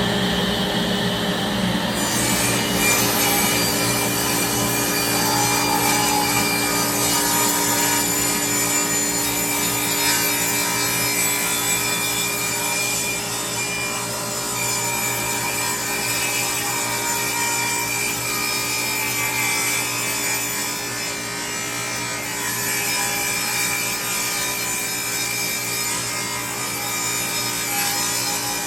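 Table saw rip-cutting an air-dried western red cedar slab: the blade chews steadily through the wood over the steady hum of the saw motor and dust collector, with the cutting noise coming in about two seconds in.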